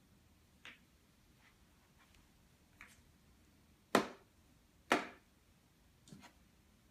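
A child's coloring marker striking paper on a plastic toy desk: a few irregular sharp taps, the two loudest about four and five seconds in.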